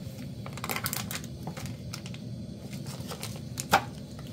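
Plastic and foil packaging crinkling and clicking as a round cheese is peeled open by hand, with one sharp click about three-quarters of the way through. A canister gas stove runs steadily underneath.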